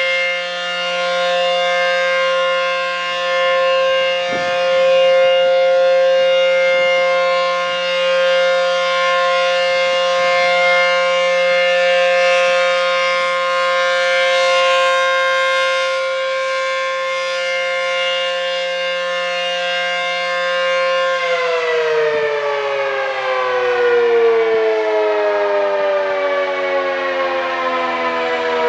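ACA P-15 electro-mechanical storm siren sounding a loud, steady tone. About three-quarters of the way through it begins winding down, its pitch falling smoothly, as the test ends.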